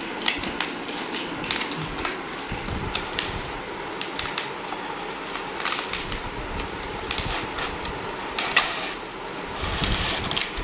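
Cardboard packaging being opened by hand: scraping and rustling as a plastic insert tray slides out of its cardboard sleeve, with many scattered clicks and taps.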